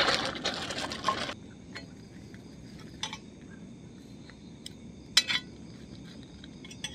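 Metal tongs clicking and scraping against a small frying pan as bread is toasted on a portable gas stove: a handful of short sharp clinks, the loudest about five seconds in. Under them is a faint steady high chirring of night insects. A louder hissing rush fills the first second and cuts off suddenly.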